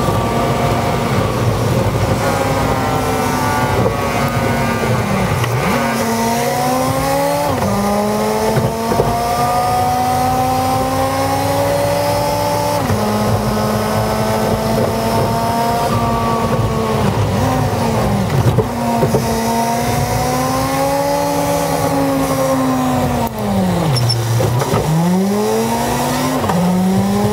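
A commuter bus engine heard from inside the cabin, played back sped up. Its pitch climbs and then drops sharply about six times as the bus accelerates, changes gear and slows.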